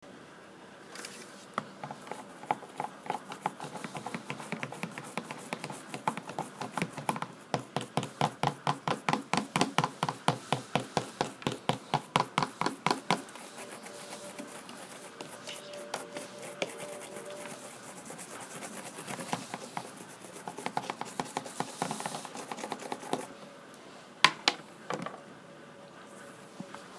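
Toothbrush bristles scrubbing back and forth over the plastic teeth of a dental model in quick, rhythmic strokes, briefly louder and faster in the middle. A couple of sharp clicks come near the end.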